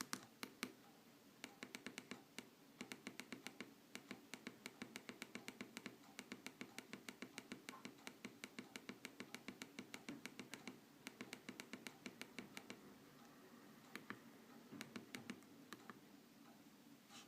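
Faint, rapid small clicks of a mobile phone being handled and operated, several a second, in runs with short pauses between them.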